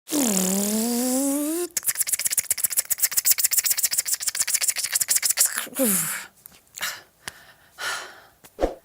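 Beatboxer imitating engine knock and pinging with his voice: a hum rising in pitch, then a rapid even run of clicks, about ten a second, then a short falling vocal glide and a few scattered clicks and hisses, ending on a short low thump.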